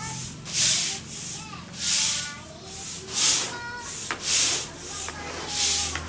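Long-handled broom sweeping drying unhulled rice grain across stone floor tiles: five swishing strokes, about one every second and a quarter.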